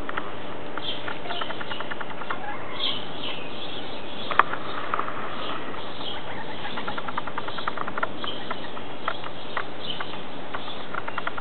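Backyard hens foraging among garden plants: light scratching and pecking clicks and short chirping calls, some in quick runs, over a steady hiss. One sharper click comes about four and a half seconds in.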